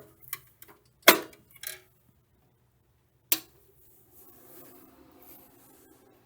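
Hard plastic and metal clicks and knocks as a circuit card is pushed into an expansion slot and the hardware handled. The loudest knock comes about a second in and a single sharp click a little past three seconds, followed by a faint low hum.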